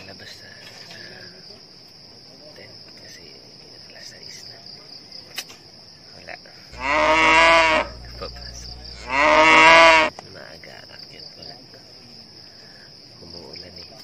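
A cow mooing twice in the middle, two calls of about a second each, a little over a second apart, over a steady chorus of crickets.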